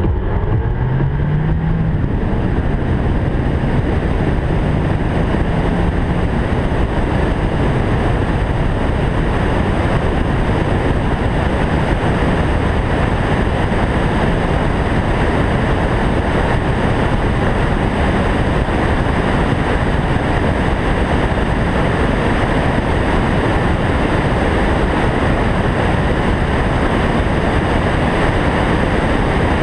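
Car pulling away and accelerating, its engine pitch rising over the first several seconds, then a steady rush of wind and road noise at speed, with wind buffeting an exterior hood-mounted microphone.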